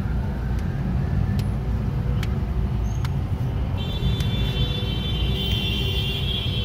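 Traffic idling at a red light, heard from inside a car: a steady low engine rumble with a few light clicks. About four seconds in, a steady high-pitched tone comes in and lasts for the last few seconds.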